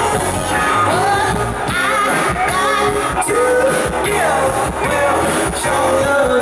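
Live band playing through a PA, heard from within the audience: a woman's lead vocal with sliding, held notes over electric guitars and drums.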